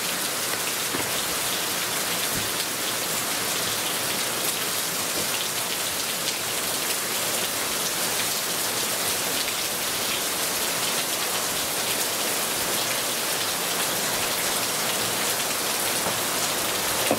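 Steady rain falling: an even hiss with scattered small drop taps.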